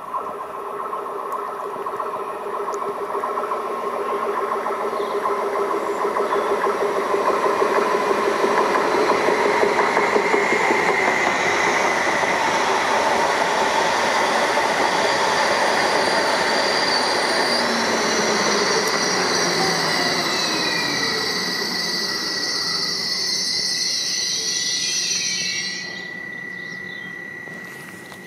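A Meridian Stadler FLIRT electric multiple unit running past the platform. Its rolling noise and high-pitched whining tones build to a peak about ten seconds in. Later the pitch falls away and the sound drops off sharply near the end, leaving a faint steady high tone.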